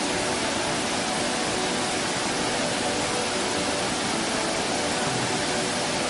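A steady, even rushing noise with no breaks or changes.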